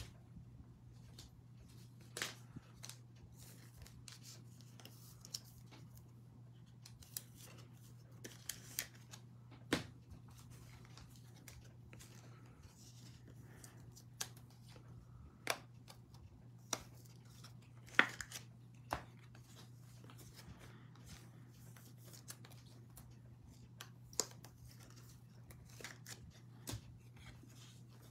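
Baseball cards being slid into rigid plastic toploaders: faint, scattered clicks and rustles of card and plastic handling, the sharpest about eighteen seconds in, over a low steady hum.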